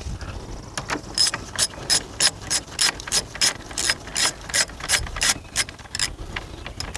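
Socket ratchet clicking as a battery nut is tightened, about four clicks a second, starting about a second in and stopping shortly before the end.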